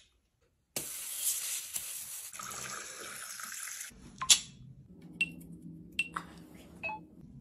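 Liquid from a soda can pouring and fizzing for about three seconds. Then comes one sharp click, followed by a few lighter metallic clicks as the can's top and tab are handled.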